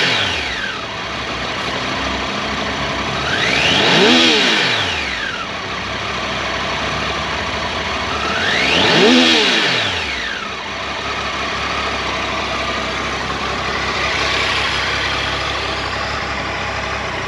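Triumph Tiger 800 XCx's inline three-cylinder engine idling with the throttle blipped. The revs fall back from a blip at the start, rise and fall twice more, about 4 and 9 seconds in, and once more lightly near the end, settling back to a steady idle each time.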